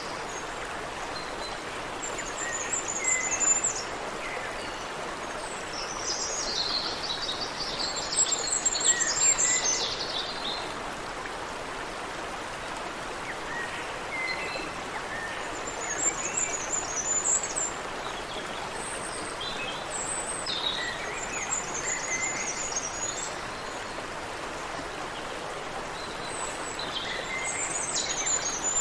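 Water in a stream running steadily, with songbirds chirping and calling in short high-pitched phrases every few seconds; the loudest is a dense, buzzy trill about a quarter of the way in.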